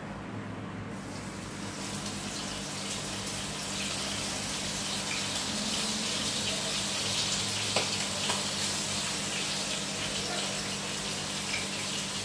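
Hot oil sizzling in a frying pan on a gas stove: a steady hiss that builds over the first couple of seconds, with a few faint crackles. A low steady hum runs underneath.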